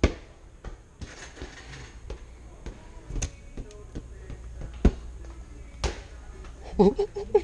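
A large inflatable ball bouncing and smacking on a hard concrete floor: a few sharp, loud thuds spaced a second or more apart, the first right at the start and the others about three, five and six seconds in.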